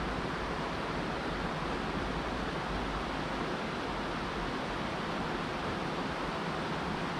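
Steady rush of flowing river water, an even hiss without pause.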